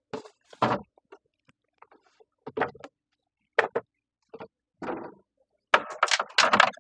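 Short knocks, clunks and rattles of food containers and bottles being moved about on refrigerator shelves, with a busier run of clattering near the end.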